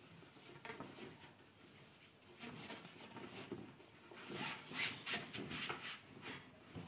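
A metal tube being pushed down through a canvas sleeve of a folding camping kitchen frame: faint fabric rustling and scraping with small knocks, busiest about four to six seconds in.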